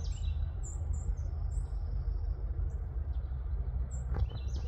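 Birds chirping, a few short high calls in the first second and a half and again near the end, over a steady low rumble.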